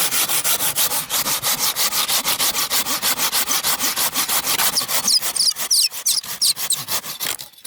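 Hand saw cutting through dry wood in quick back-and-forth strokes, about six or seven a second, with high squeaks from the blade in the second half. The sawing stops just before the end.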